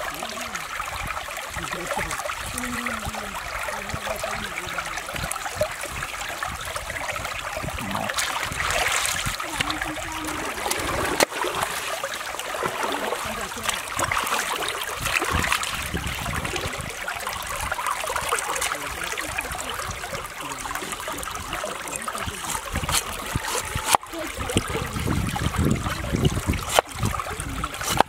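Shallow stream running and trickling steadily, with a few sharp knocks of a cleaver striking a wooden chopping board.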